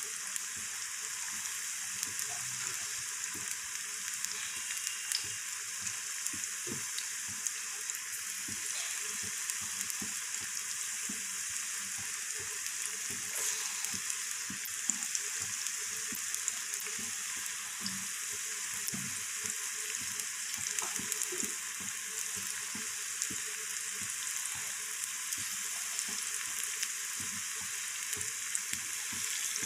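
Battered cauliflower pakoras deep-frying in hot oil in a karahi: a steady sizzle with small scattered crackles and pops.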